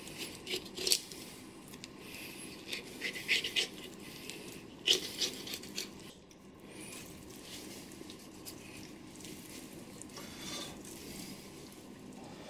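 Knife blade scraping and crackling along a bonito's backbone and rib bones as the fillet is cut free, in a run of short strokes during the first five seconds and fainter, steadier cutting after that.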